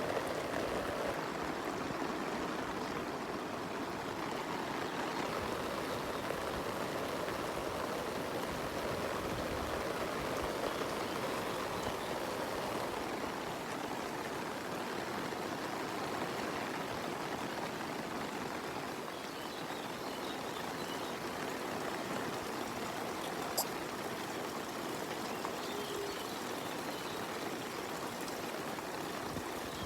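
Steady rush of rain and running water, an even hiss with no break, with one sharp tick about two-thirds of the way through.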